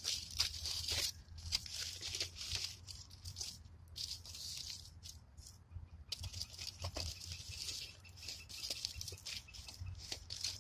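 Aluminium foil crinkling and rustling in uneven bursts as it is folded and pressed around a fish.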